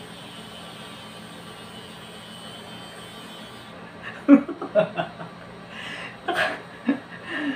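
Battery-powered nose hair trimmer with a small spinning blade buzzing steadily inside a nostril, cutting off about three and a half seconds in. A few short startled chuckles and breaths follow.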